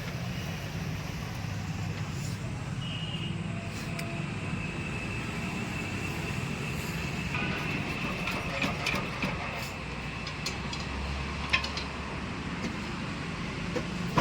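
A steady mechanical running noise, a low rumble with a faint high whine over it, with a few sharp metallic clicks in the second half.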